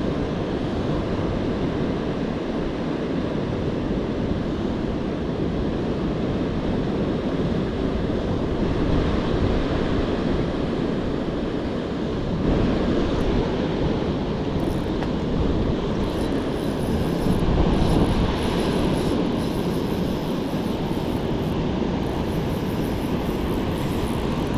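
Steady rushing roar of water pouring through a spillway, swelling slightly now and then.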